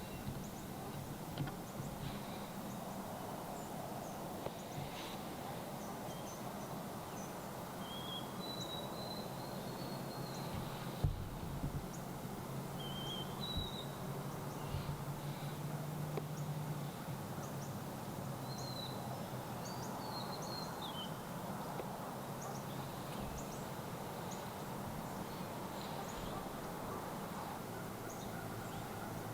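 Early-morning outdoor ambience: a steady background hiss with a faint low hum, and small birds giving short chirps now and then. A single sharp knock comes about eleven seconds in.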